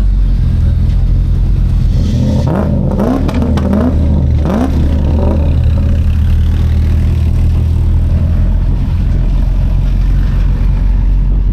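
A car engine runs steadily at low revs. From about two to six seconds in, an engine is revved in several quick blips, its pitch rising and falling each time.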